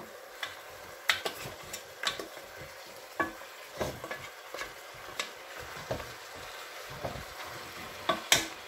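Pieces of lamb sizzling as they fry in oil in a stainless steel pot, stirred with a wooden spoon. The spoon scrapes and knocks against the pot at irregular moments, about once a second, with a sharper knock near the end.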